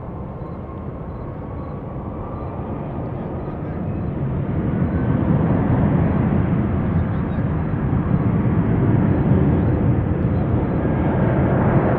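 Airbus A350 airliner's Rolls-Royce Trent XWB engines during landing: a steady jet roar with a faint whine rising in pitch, growing louder about four seconds in as the aircraft touches down and rolls out.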